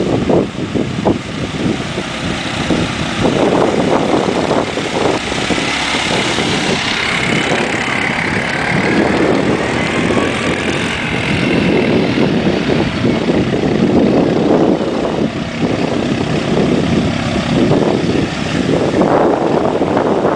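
ATV engines running, with a high whine that rises and then falls in the middle as a quad passes, over a rough rumble of wind on the microphone.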